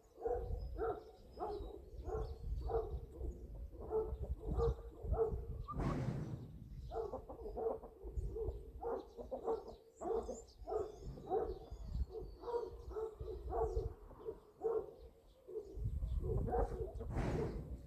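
Chickens clucking in a steady run of short, repeated notes, about two or three a second, over a low rumble.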